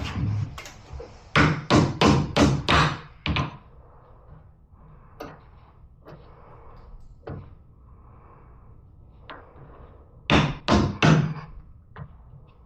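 Hammer blows driving a pickup tailgate hinge insert into place: a quick run of about six sharp strikes, a few light taps, then four more strikes near the end.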